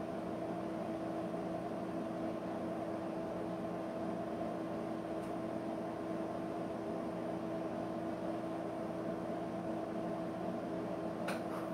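Steady electrical or appliance hum with a faint hiss, holding several constant pitches; a couple of faint clicks near the end.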